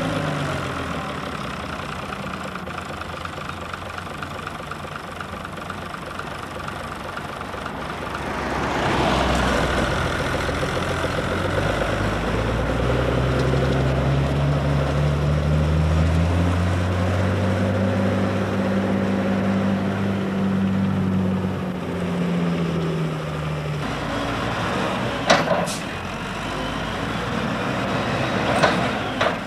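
Farm tractor engines running. Midway one engine climbs in pitch and then eases back down, as a tractor pulls a loaded grass wagon. Near the end the sound changes suddenly, with two sharp clicks.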